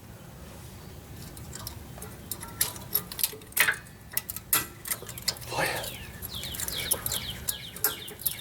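Metal brake pad clips and pads clicking and clinking as they are handled and pressed into a disc brake caliper bracket: a string of sharp clicks, growing busier after the first couple of seconds, with brief metallic scraping in the middle.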